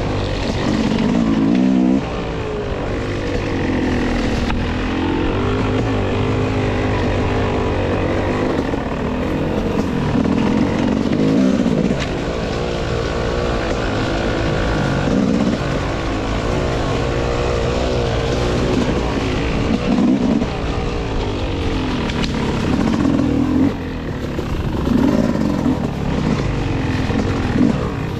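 Dirt bike engine being ridden on the trail, its pitch rising and falling continually as the throttle is worked on and off.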